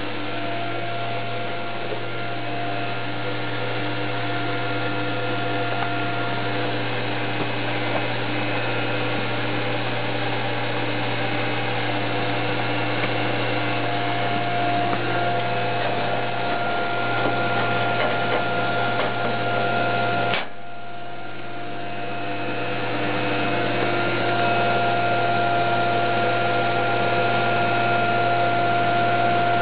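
Compact Airpop hot-air popcorn vending machine running: a steady hum with a few steady whines over it. About twenty seconds in a click cuts it briefly, and then it comes back and slowly grows louder.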